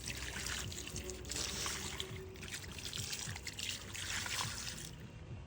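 Water running out of a drain pipe and splashing into a rock-filled drainage hole, an uneven trickling and splashing that stops near the end.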